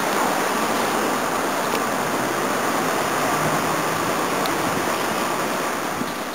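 Steady roar of city street traffic, easing slightly near the end.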